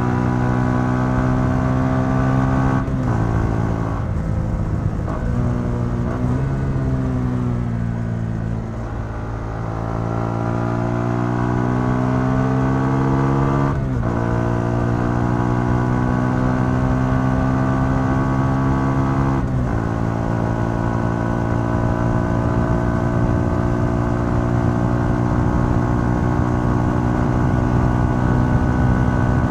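Yamaha XSR 125's single-cylinder four-stroke engine through its stock exhaust, heard from the rider's seat under way, with wind rumble. The note falls as the bike slows after a few brief breaks, climbs again as it speeds up, and drops with gear changes about halfway and two thirds of the way through, then holds a steady cruising note.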